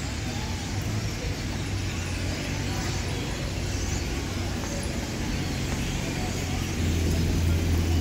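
Dense, continuous chatter of a large flock of dark blackbirds ("pájaros prietos") gathering in trees to roost, over a steady low traffic hum that grows louder about seven seconds in.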